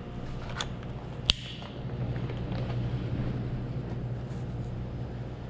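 Handling of a motorcycle helmet's plastic face mask as it is being fitted onto the helmet, with a few light clicks and one sharp click about a second in, over a steady low hum.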